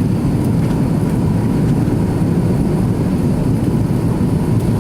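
Steady low drone of engines and airflow heard inside the cabin of an Airbus A330-300 airliner.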